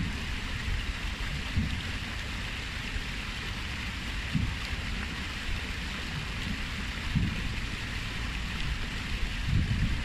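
Water splashing steadily down the stone steps of a cascade fountain into a pool, with a few brief low rumbles now and then.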